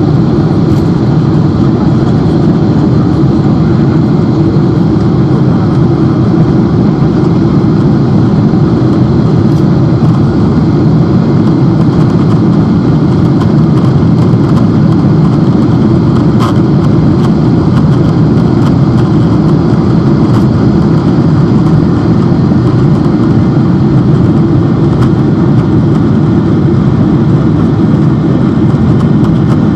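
Boeing 747-8's four GEnx-2B turbofan engines at takeoff power: a loud, steady, deep noise that does not change.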